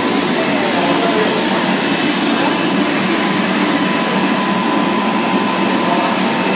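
Mung bean cake frying line running: a steady machine hiss with a faint steady whine on top.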